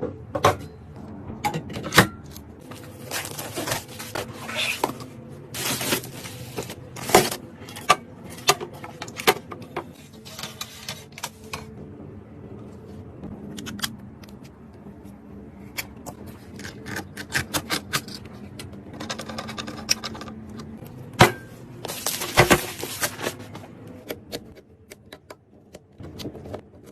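Clicks, taps and short scrapes of computer hardware being handled and fitted together during a PC build: parts set down, clipped and slid into a case.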